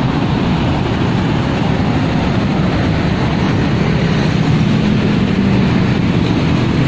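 Road traffic of cars and motorcycles passing close by: a loud, steady rumbling noise, with an engine hum coming in during the last couple of seconds.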